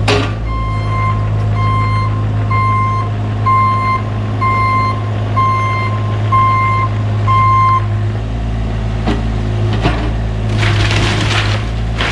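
Cat 303 mini excavator's diesel engine running steadily while its travel alarm beeps eight times, about once a second, as the machine tracks. Near the end, shed timbers crunch and splinter as the excavator pulls the structure down.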